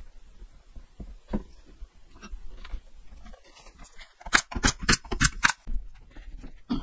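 Small wooden blocks and slats clacking against each other and the plywood bench as they are laid out by hand: a knock about a second in, then a quick run of about six sharp knocks past the middle.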